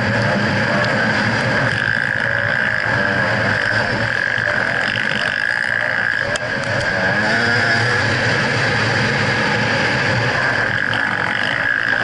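2011 GasGas EC300 two-stroke enduro motorcycle engine running under throttle while riding, its pitch wavering up and down as the throttle is worked, with a brief drop in level about six seconds in as the throttle is closed. Wind rushes over the microphone throughout.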